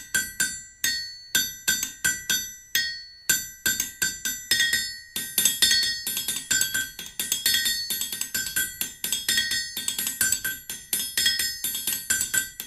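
Background music of quick, evenly repeated struck notes, growing busier about five seconds in.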